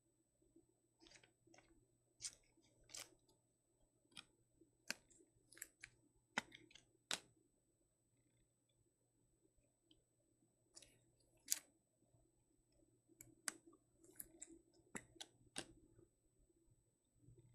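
Trading cards being handled and slid into plastic top loaders and sleeves: a scatter of faint, short clicks and scrapes of card and plastic, in two bursts with a pause between.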